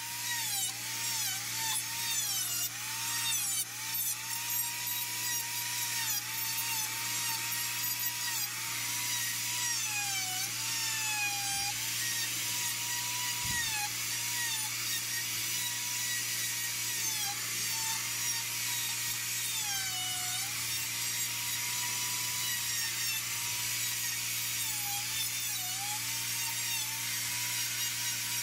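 Electric die grinder running at high speed and carving wood, a steady high whine whose pitch dips each time the bit bites into the wood. The dips come often in the first dozen seconds and only now and then later.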